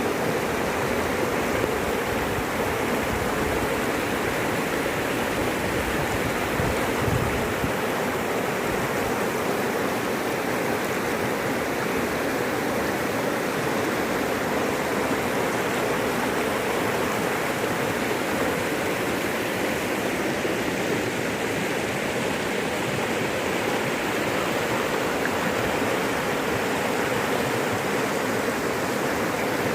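Floodwater rushing in a swollen river, a steady unbroken rush of water.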